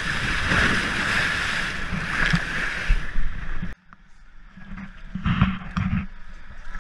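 Water rushing along the hull of a moving boat, with wind on the microphone and a low rumble. It cuts off abruptly just under four seconds in, leaving a quieter stretch with a few short knocks.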